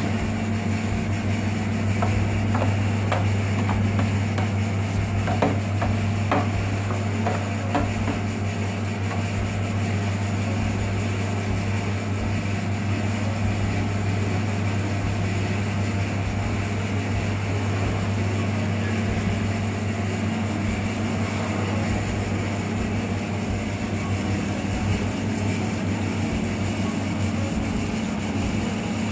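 Coconut milk extractor machine running with a steady low motor hum. A few light clicks and knocks come through in the first several seconds.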